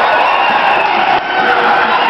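Many young voices shouting and cheering together, a dense, loud crowd of kids with no single voice standing out.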